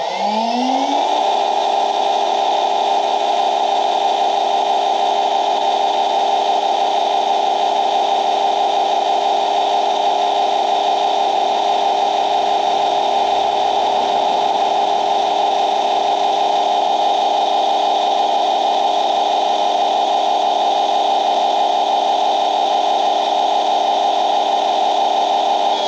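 EGO Power+ HPW3200 cordless 3200 PSI pressure washer's electric motor and pump spinning up with a rising whine when the trigger is pulled, then running steadily with a whining hum while spraying rinse water through the rinse nozzle.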